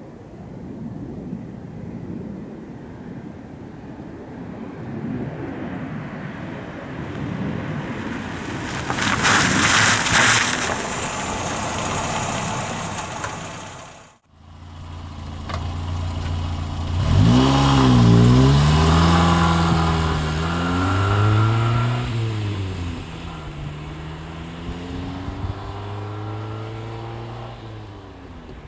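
1983 Ford Escort MK3 1.1 driving past: a rising rush of car noise that peaks and fades, then cuts off abruptly about halfway through. After that its engine revs, the pitch rising and falling several times, loudest a few seconds after the cut.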